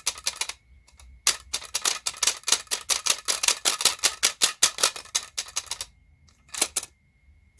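Quick, sharp clicking and clattering of hand tools and small plastic and metal parts as a stereo unit is taken apart, about seven clicks a second for several seconds, then a short pause and a few more clicks near the end.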